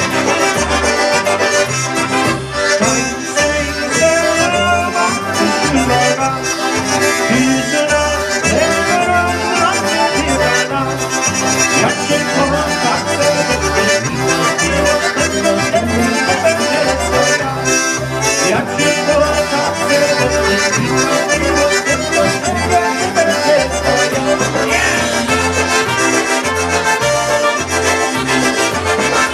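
Live polka band playing a polka: accordion and two trumpets over electric bass and drums, with a steady two-beat bass pulse.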